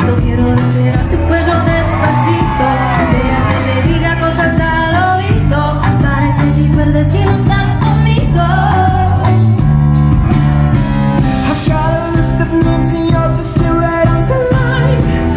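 Live pop medley: a woman singing into a microphone over keyboard accompaniment with a steady pulsing bass line.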